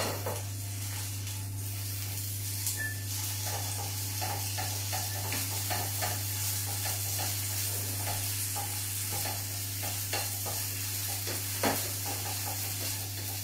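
Firm tofu sizzling as it fries in a pan, stirred and turned with a silicone spatula in many short scraping strokes, with one sharper knock near the end.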